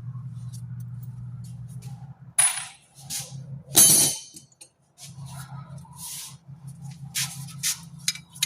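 Scattered clinks and clanks of metal parts and hand tools being handled, about seven of them, the loudest about four seconds in, over a steady low hum.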